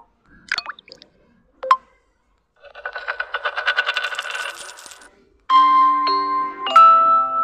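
Vivo V29e (Funtouch OS 15) notification tones played one after another: two short blips, then a shimmering cascade of rapid chime ticks lasting about two and a half seconds, then held chime notes that change pitch in steps.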